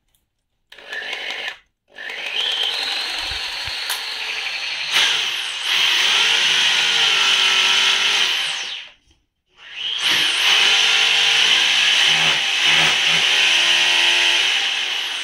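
Electric hand drill boring into a wall: a short burst, then two long runs of a loud, steady motor whine with a brief stop between them.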